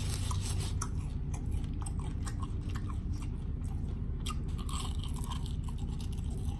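Person chewing and crunching on bacon: scattered small crunches over a steady low hum.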